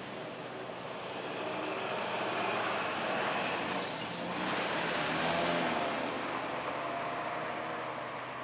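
Outdoor traffic noise: a vehicle drives past, swelling to its loudest about five seconds in and then fading.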